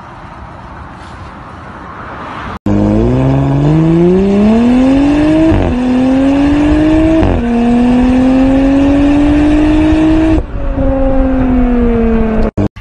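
Car engine accelerating hard through the gears, starting after a cut about two and a half seconds in. Its pitch climbs in each gear and drops at two quick upshifts, then falls as the throttle eases near the end. Heard from inside the car.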